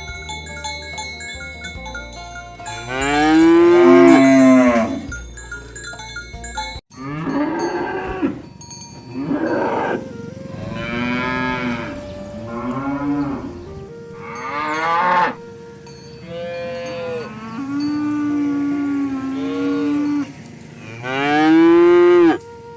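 Cattle mooing again and again, about nine calls of varying length, some short and some drawn out. The loudest calls come a few seconds in and near the end.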